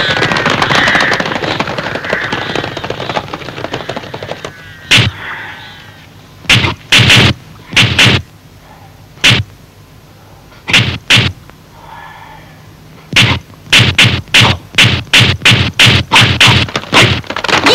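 Kung fu film fight sound effects: sharp, loud cracks for punches and kicks. They come singly or in pairs at first, then in a fast even run of about three a second over the last few seconds. A hiss fades out over the first few seconds.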